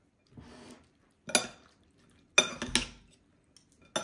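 Metal spoon stirring a wet filling of egg, milk, cheese and dough strips in a ceramic bowl. It clinks sharply against the side of the bowl a few times, about a second apart, with soft wet stirring between.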